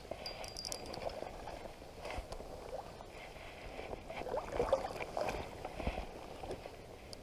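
River water lapping and gurgling against the shore in an irregular, fluttering wash.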